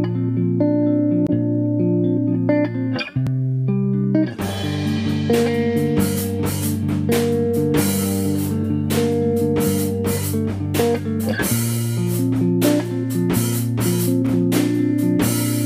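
Instrumental background music led by guitar over a bass line, with a drum kit coming in about four seconds in and keeping a steady beat.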